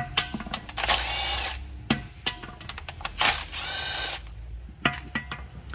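Cordless power tool spinning out the 10 mm oil pan bolts of a 6L50 automatic transmission in two bursts of about a second each, its motor whine rising and then falling in pitch. Sharp clicks come between the bursts.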